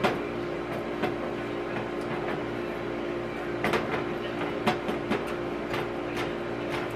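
Small metal measuring cup pressing and scraping a crushed Oreo cookie crumb crust into a springform pan, giving scattered light clicks and scrapes against the metal, most of them in the second half. A steady low hum runs underneath.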